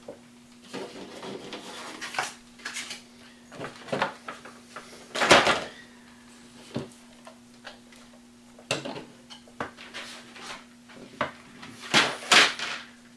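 Handling noise: scattered knocks, clicks and rustles as items are moved and set down on a table, with a louder knock about five seconds in and another near the end. A faint steady hum runs underneath.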